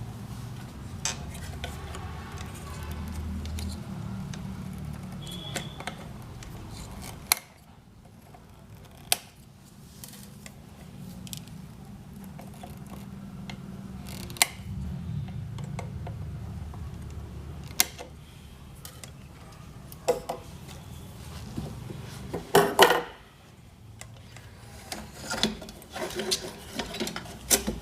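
Side cutters snipping the excess leads of newly soldered components on a circuit board: scattered sharp clicks among small metallic handling rattles, over a low hum.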